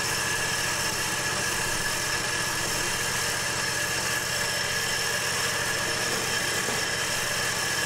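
Portable chain-bar sawmill running steadily on its 23-horsepower Briggs & Stratton Vanguard engine while sawing a log into 4-inch cants, with a faint steady high whine over the engine.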